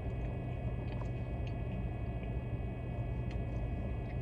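A steady low hum with a few faint short clicks.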